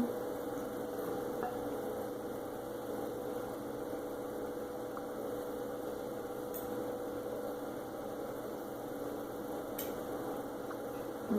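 Steady background hum with one held tone running through it, and two faint clicks, one in the middle and one near the end.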